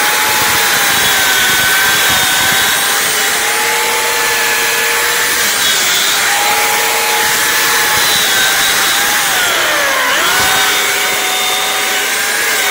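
Stihl chainsaw running at high revs and cutting into a storm-broken tree trunk. Its pitch drops briefly about six seconds in, then sags lower around ten seconds in as the chain bogs down in the wood, and climbs back up.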